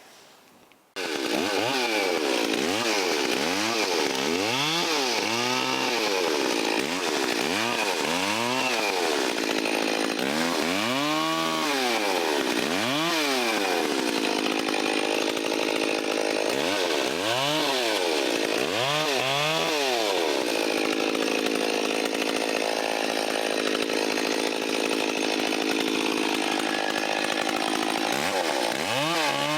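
Stihl 034 two-stroke chainsaw running, starting suddenly about a second in. Its engine speed climbs and drops again and again as it is throttled up and down while cutting wood, with a longer stretch held at steady high speed near the end.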